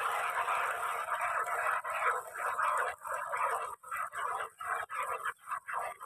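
Cow being milked by hand: jets of milk squirting from the teats in a rapid hissing rush, breaking up in the second half into separate squirts about three a second.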